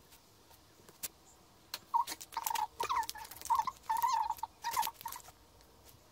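Posca paint pen nib squeaking against a painted rock in a quick run of short drawing strokes, between about two and five seconds in, after a couple of light clicks.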